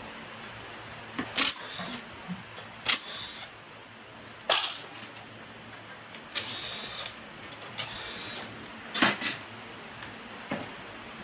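Hand tools and metal engine parts being handled during a small petrol engine teardown: a series of sharp, irregular clicks and clanks, a few with a brief ring.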